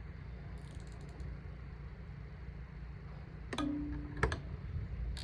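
Hand tools and metal parts clicking against the baler's knotter: two sharp metallic clicks a little past the halfway point, the first with a short low ring, over a low steady hum.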